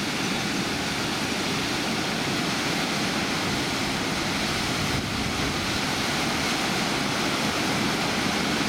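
Water pouring over a river weir: a steady, unbroken rush.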